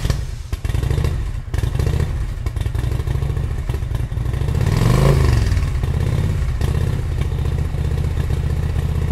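Motorcycle engines running at a low, steady throb. About halfway through, one revs up and drops back down, with a shorter rise and fall near the end.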